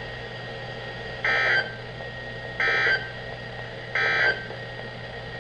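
Emergency Alert System end-of-message code on a weather-radio broadcast: three short bursts of buzzy two-tone digital data (the SAME "NNNN" signal) about a second and a half apart, marking the end of the warning.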